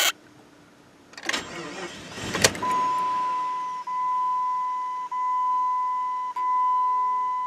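Dashboard warning chime in a Jeep Grand Cherokee cabin: a steady high beep repeated in even, long tones of about a second and a quarter each, starting about two and a half seconds in. Before it come a click and a short rattling burst of noise.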